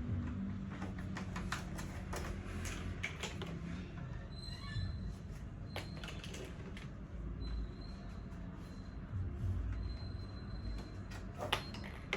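Irregular clicks and knocks of baby high chair parts being handled and fitted together during assembly.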